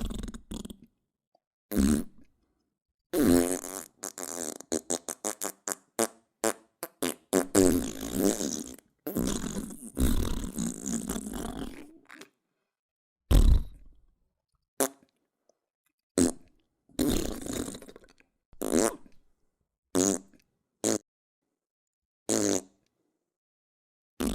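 A series of farts, one after another with silent gaps between them: short single blasts, plus a long sputtering run of rapid pops in the first half.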